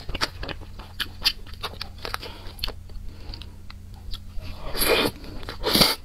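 Close-up wet chewing and mouth smacks of a person eating a soft mango cream cake, a quick run of small clicks, with two louder, longer sounds near the end.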